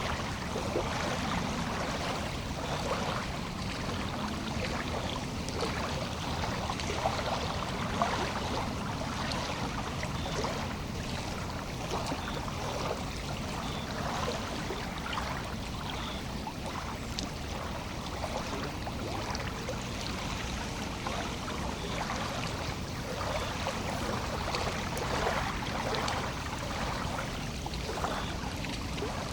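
Lake water lapping in small, irregular splashes over a steady wash.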